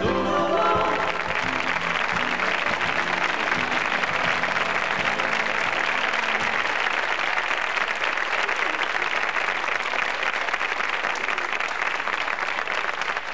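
Studio audience applauding steadily, dense clapping that begins as the song ends and carries on throughout.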